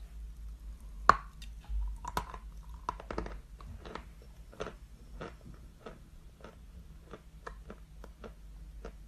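A person biting and chewing a block of chalk: one sharp crack about a second in, then a string of crunches every half second or so.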